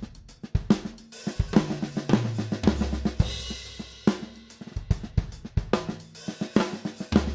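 Drum kit played in time, with fills of the four-note flam pattern (flam, right, left, left) in eighth-note triplets. The fills step down the toms to the floor tom, and a cymbal crashes about three seconds in.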